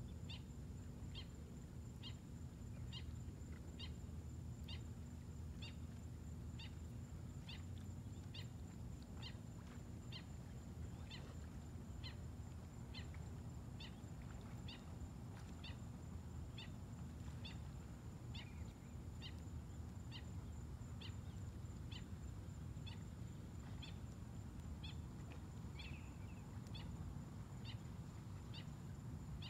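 Faint outdoor night ambience: a small animal chirping in a regular rhythm, about two short high chirps a second, over a low steady rumble.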